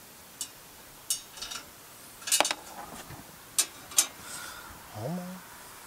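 Metal clinks of a socket and bolt against a Briggs & Stratton engine's muffler heat shield as a bolt is worked into place: a series of sharp separate clinks, the loudest cluster about two and a half seconds in. A short rising hum comes near the end.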